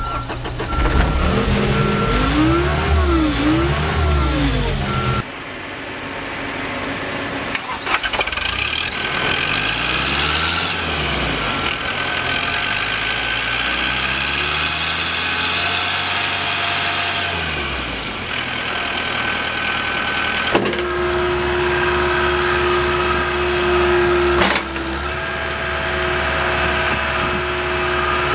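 Diesel engine of a John Deere 323D tracked skid steer loader running, its speed rising and falling several times, with sudden changes in the sound at a few points. In the last part it runs steadily with a steady whine over a low rumble.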